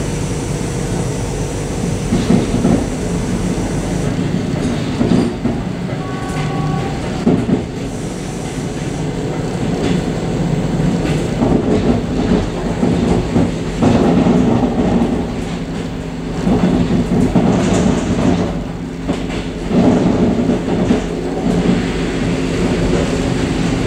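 Suburban electric train running along the track, heard from inside its vestibule: a steady rumble of wheels on rails with a low hum, and scattered knocks as the wheels pass over rail joints.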